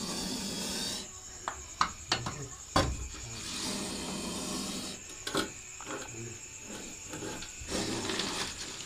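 Metal snake hook and tongs scraping and rubbing against bamboo poles and a wooden rack, with a few sharp knocks as the metal strikes the wood.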